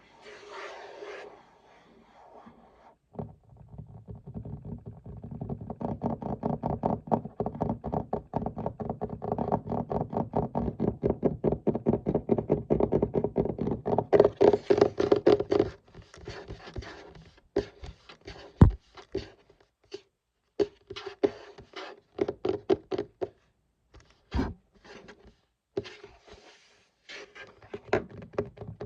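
Fingers tapping and scratching on a desk: a long run of rapid taps, then slower scattered taps with two sharp, louder knocks.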